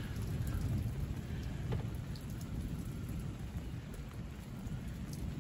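Low, steady rumble of open air just after a thunderstorm, with a faint hiss and a few faint ticks like dripping water.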